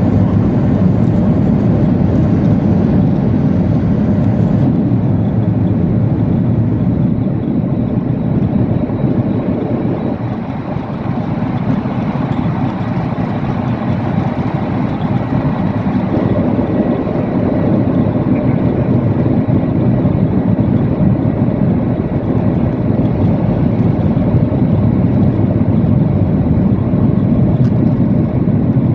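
Steady rumble of a Boeing 737-800's CFM56-7B engines and airflow heard inside the passenger cabin.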